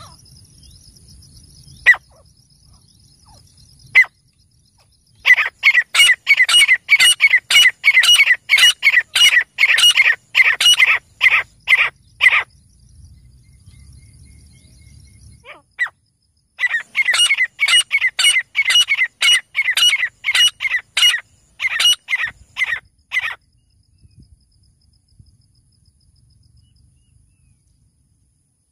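Male grey francolin calling: two long runs of loud, high-pitched notes repeated about three times a second, each run lasting six to seven seconds, after two single notes near the start.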